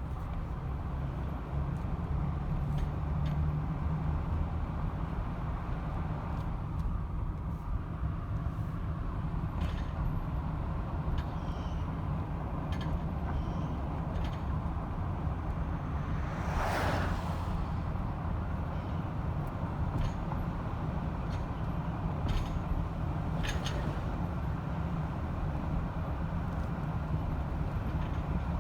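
2018 Ford F-150 Raptor pickup in motion, with a steady low rumble and scattered short clicks and clanks from a rattle in the front end. A louder rushing swell lasting about a second comes a little past halfway.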